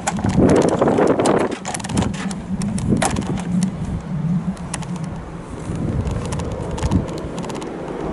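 Clicks and rattles from a hand working the black plastic door handle on an old Mercedes-Benz 1735 truck cab. The busiest handling comes in the first second and a half, and there is one sharp click about three seconds in, over a low steady hum.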